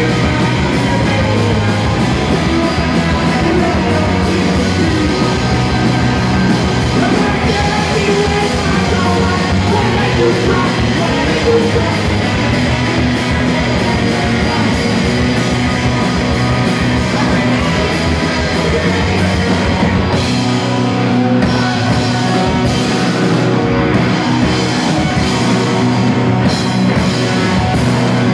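Live rock band playing loud, with electric guitars, bass and drum kit behind a woman's singing. The deepest bass thins out about twenty seconds in.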